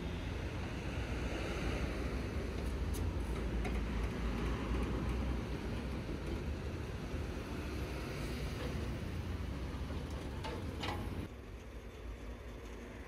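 Flatbed tow truck's engine running with a steady low rumble while a car is winched up onto the tilted bed, with a few short metallic clicks. The level drops about eleven seconds in.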